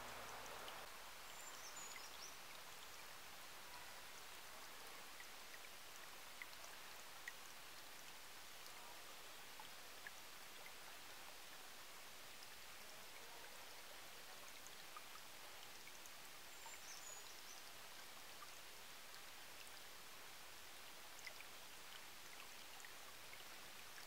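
Small woodland stream trickling and babbling over rocks, faint and steady, with scattered small plinks of water.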